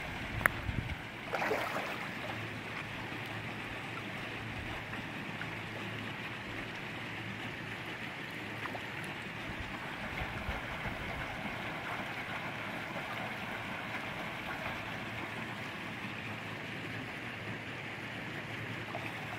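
Steady rush of flowing water in a trout hatchery raceway, with a brief scuff about a second and a half in.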